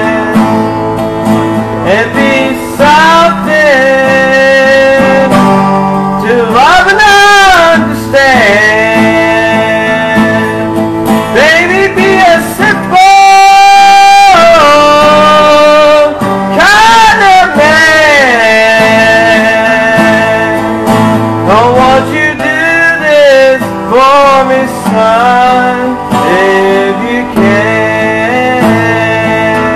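A man singing a slow song to his own acoustic guitar, his held notes wavering in pitch, with one long loud held note about halfway through.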